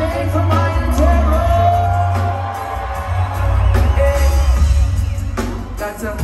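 Live reggae band playing through a concert PA, with a singer over a heavy bass line, recorded from within the crowd.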